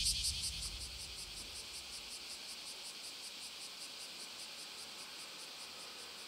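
Summer insects chirring, a steady high-pitched trill pulsing several times a second, while a low rumble fades away in the first second or so.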